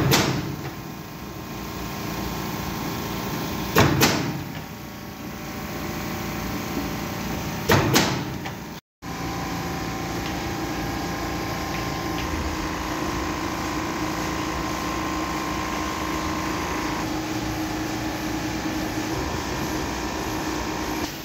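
Roll laminator running with a steady mechanical hum and whir, broken in the first half by three loud, sharp clacks about four seconds apart.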